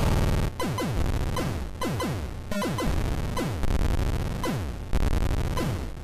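Background electronic music: a synthesizer playing repeated falling pitch sweeps, about two a second, over a low pulsing bass.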